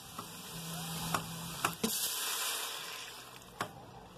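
A glass of water poured into a hot stainless-steel pot of guajillo chiles, onion and garlic frying in oil, giving a hissing rush that swells about two seconds in and dies away, with a few sharp clicks.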